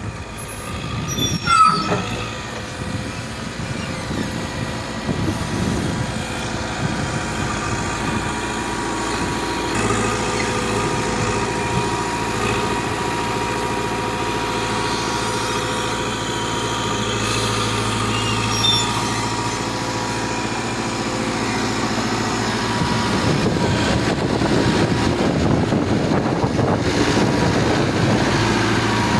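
Caterpillar 428E backhoe loader running steadily, with a short loud high-pitched sound about two seconds in. The machine gets louder over the last several seconds.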